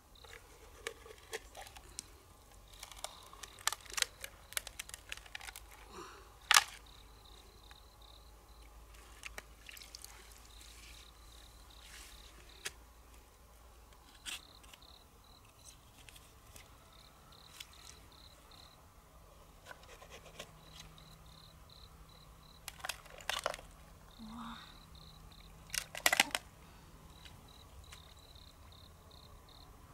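Knife blade clicking and scraping against large freshwater mussel shells as they are pried open, with scattered sharp knocks and long quieter stretches between them. An insect chirps in short repeated pulses in the background.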